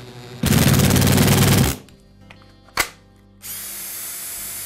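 Makita 18V cordless hammer drill, rebuilt with a new armature, running on a test: a loud rattling burst of about a second, then after a click a steady high whine for about two seconds.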